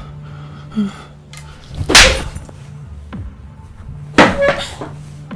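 Two loud blows landing in a scuffle, about two seconds apart, the first the louder and the second followed by a lighter hit, over a low steady music drone.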